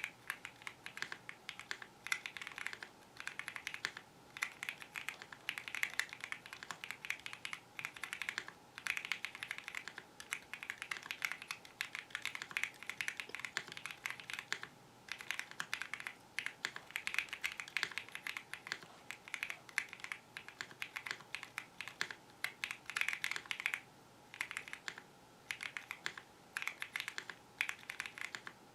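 Modded Bridge75 mechanical keyboard with Wuque Studio Basic Yellow keycaps being typed on steadily: fast runs of sharp keystroke clacks broken by short pauses between words and phrases.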